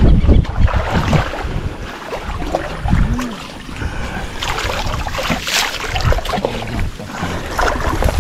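Wind buffeting the microphone, with irregular water sloshing and splashing as people wade and work a dip net in shallow marsh water.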